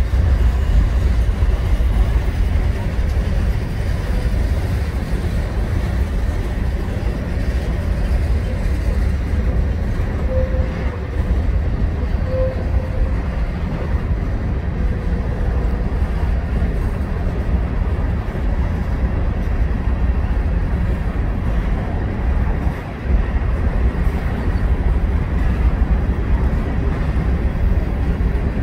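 Freight train of tank cars and covered hoppers rolling past at close range: a steady, heavy rumble of steel wheels on the rails.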